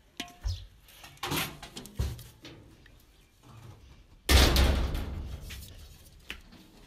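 Scattered knocks and clatter, then a loud thump with a rushing noise about four seconds in that fades over about a second.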